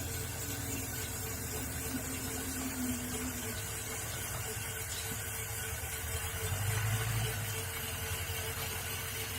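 Electric Krot cultivator, run through a frequency converter, tilling soil: a steady motor and gearbox hum over a low rumble, briefly louder about seven seconds in.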